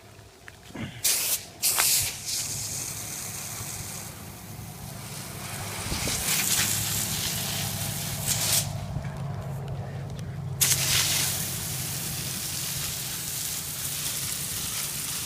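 Garden hose spray nozzle spraying water onto a brush fire, with a few short spurts at first and then a steady spray. The spray cuts off just under nine seconds in and comes back on abruptly about a second and a half later.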